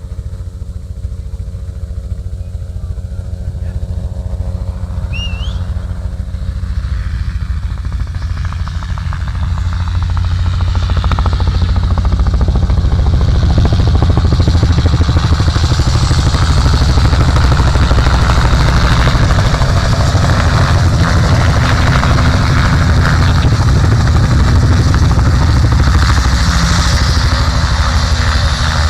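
Helicopter engine and rotor running steadily, a deep droning hum with a rushing noise that grows louder about ten seconds in and then holds steady.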